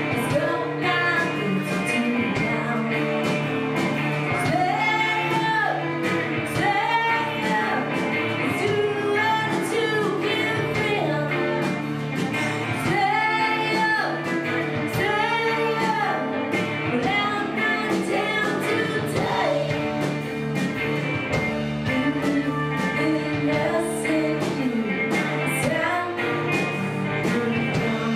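Indie rock band playing live: electric guitars and a singer's voice over a steady beat.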